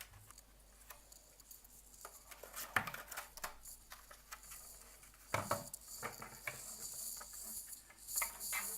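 Scissors snipping off the excess paper strip, with light clicks and paper rustling as the strip is handled on the hamster wheel.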